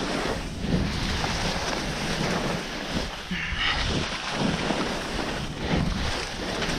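Skis carving turns on soft spring snow, a swishing scrape that swells with each turn, mixed with wind rushing over the microphone.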